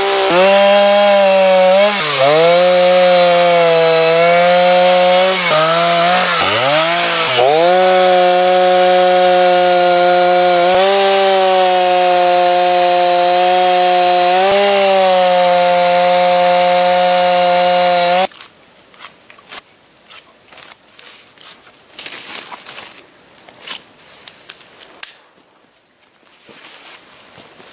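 Chainsaw running at high revs while cutting down a small pine tree. Its pitch dips and recovers several times in the first eight seconds, then holds steady until the sound cuts off abruptly about eighteen seconds in. After that come insects chirping in a steady high tone and scattered rustling.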